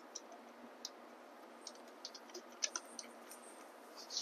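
Faint, scattered small metallic clicks and ticks of washers and nuts being handled and threaded finger-tight onto the mounting bolts of a Bafang M600 mid-drive motor.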